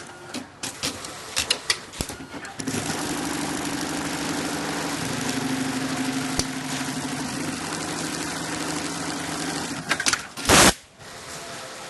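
Computerized sewing machine stitching steadily for about seven seconds, after a few separate clicks. A loud, short noise follows near the end.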